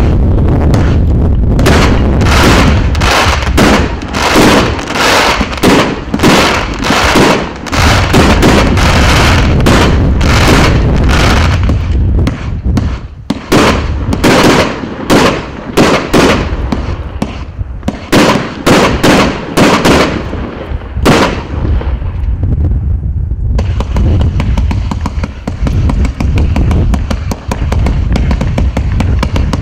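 A 157-shot consumer fireworks cake firing: a rapid run of launches and bursts, two or three a second, that thins out to a few scattered shots after about twenty seconds.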